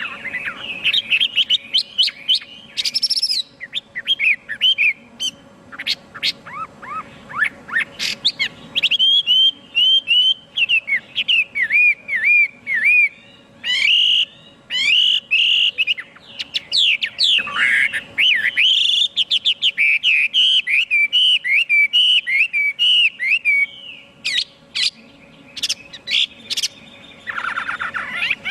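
Chinese hwamei singing a long, varied song of rapid whistled phrases, trills and sweeping glides, with hardly a pause.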